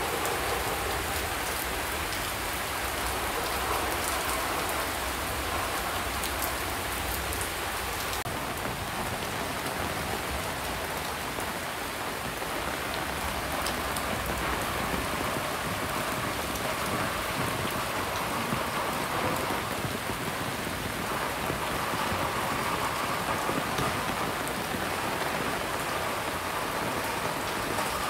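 A rain shower falling steadily: an even hiss with scattered sharp clicks of drops.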